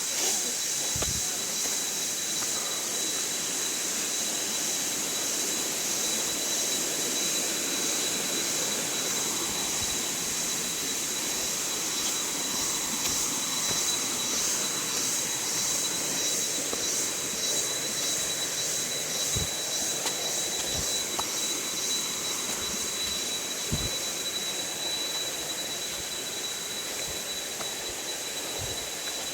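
Steady rushing of a waterfall in full rainy-season flow, with a high, evenly pulsing drone above it and a few soft low thumps.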